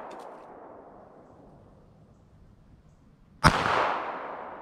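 A single pistol shot about three and a half seconds in, followed by a long echo fading away through the woods; the tail of an earlier shot is dying away at the start.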